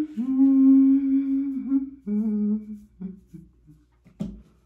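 A woman humming with closed lips: one long held note, then a shorter, lower one, trailing off into a few brief hums. A soft knock follows near the end.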